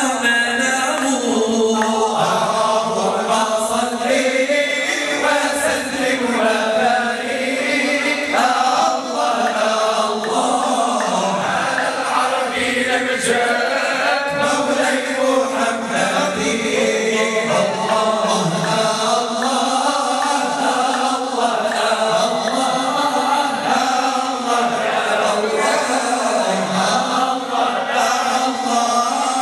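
A group of men singing a devotional chant in praise of the Prophet Muhammad together, their voices carried through handheld microphones. The singing is continuous and steady in loudness.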